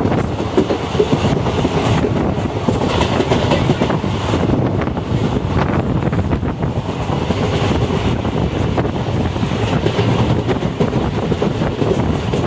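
Passenger train running along the track, heard from aboard a coach: a steady rumble and clatter of the wheels on the rails.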